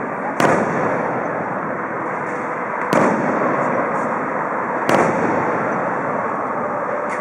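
Fireworks show finale: three sharp shell bursts, about half a second, three and five seconds in, over a continuous din.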